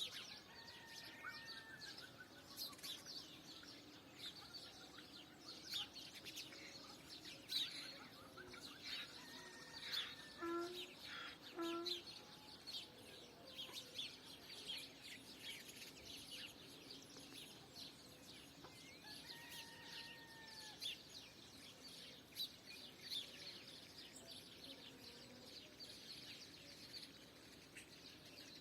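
Faint morning birdsong: many small birds chirping on and off. A distant rooster crows about a second in and again about twenty seconds in.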